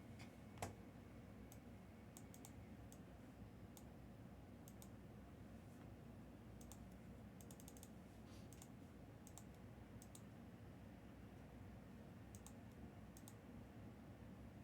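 Near silence: room tone with faint, scattered clicks of computer keys being typed, one slightly louder tick just after the start.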